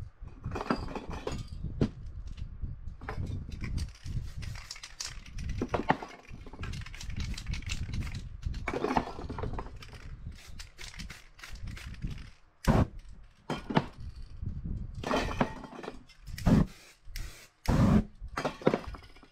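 Aerosol spray-paint can hissing through a stencil: several longer sprays, then a run of short, sharp bursts in the second half, over low handling rumble.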